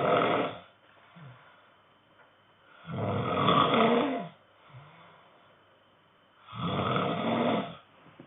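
A man snoring in his sleep, one loud snore about every three and a half seconds. One snore trails off just after the start and two more follow, each lasting over a second.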